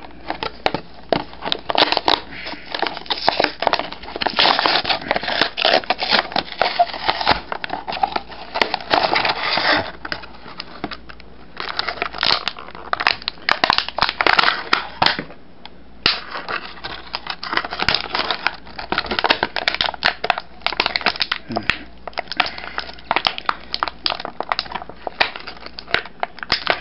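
Toy blister pack being opened by hand: stiff clear plastic crackling and crinkling in quick irregular bursts of noise as it is pried apart and handled, easing off briefly about ten seconds and fifteen seconds in.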